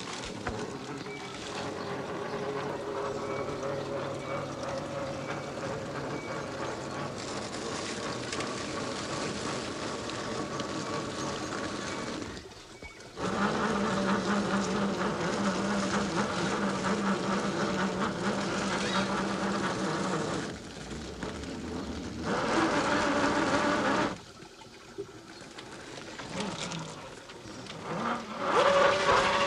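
Whine of an RC crawler's Hobbywing AXE brushless motor and geared drivetrain under changing throttle, getting louder and dropping away several times as the truck crawls, stops and pulls off again.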